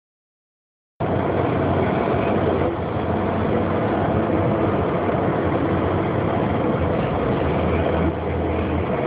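Steady road and engine noise heard inside a moving car, with a low hum underneath; it begins about a second in.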